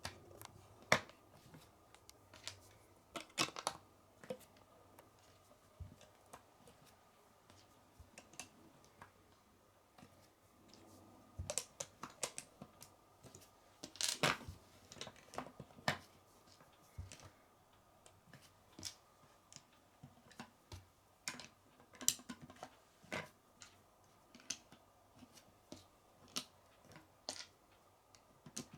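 Lego bricks clicking and clattering as pieces are handled and pressed together: scattered sharp plastic clicks, some in quick clusters.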